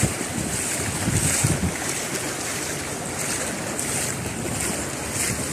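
Steady rushing water noise of a heavy rainstorm, with gusts of wind buffeting the microphone in low rumbles.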